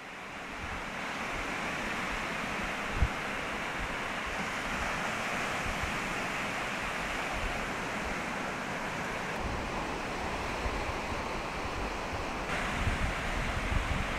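Surf breaking and washing up on a sandy beach, a steady rush, with wind rumbling on the microphone and a brief thump about three seconds in.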